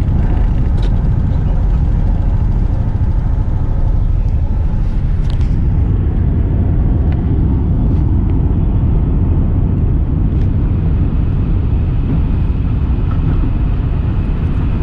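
Steady, loud low rumble of jet aircraft engines, with no clear rise or fall in pitch.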